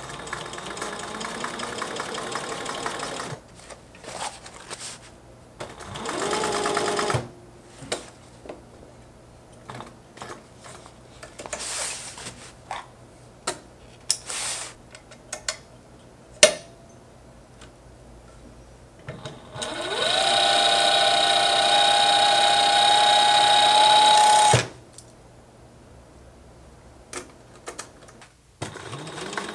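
Industrial sewing machine stitching a hem, running in several bursts that each rise in pitch as the machine gets up to speed. The longest and loudest burst comes about twenty seconds in. Between the bursts there are scattered short clicks and knocks.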